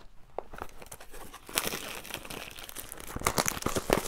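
Clear plastic shrink-wrap being torn and crumpled off a cardboard product box: crinkling and crackling with sharp snaps, sparse at first and much busier from about a second and a half in.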